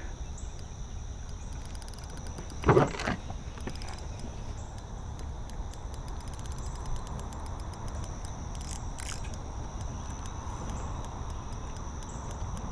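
Spinning reel's drag ticking in fine rapid clicks as a hooked carp pulls line, over a steady high insect chirring. One short loud knock about three seconds in.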